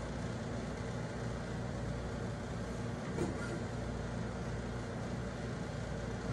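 Steady low hum with an even hiss, with no playing yet, and a faint soft tick about three seconds in.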